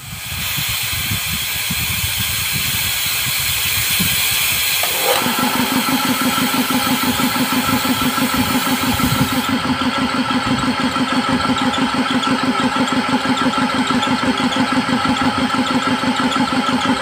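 Compressed air hissing out of an air compressor's outlet valve as the tank is bled down. About five seconds in, the pressure switch cuts in and the belt-driven piston compressor starts, running steadily with a rapid, even pulsing.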